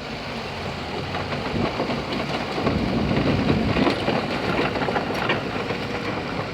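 Caterpillar 312B excavator's diesel engine running steadily with a low hum.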